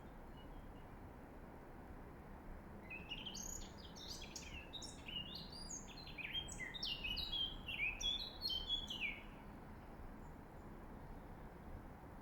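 A songbird singing one varied phrase of quick high chirps and trills, starting about three seconds in and stopping about three seconds before the end, over a steady low background hiss.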